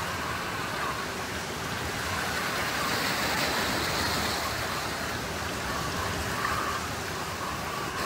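Small waves washing onto a rocky, pebbly shore: a steady rush of surf that swells a little about three seconds in.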